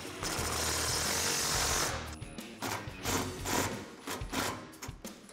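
Cordless impact driver with a long extension and Allen socket, hammering the rack's mounting bolts tight. It runs steadily for about two seconds, then in several shorter bursts.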